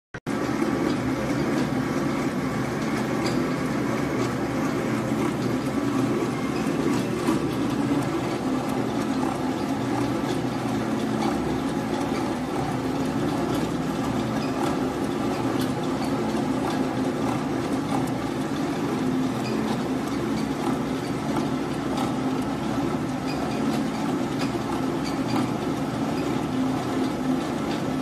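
Paper-rope rewinding machine running, winding paper twine for bag handles onto a spool: a steady mechanical hum that stays even throughout.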